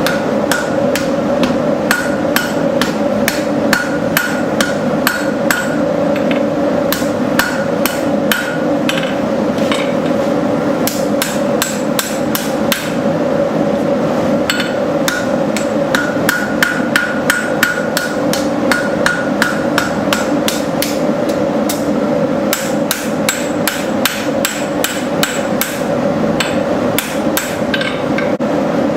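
Blacksmith's hammer striking hot steel on an anvil in long runs of blows, about two to three a second, each with a short metallic ring, broken by brief pauses. A steady drone runs underneath.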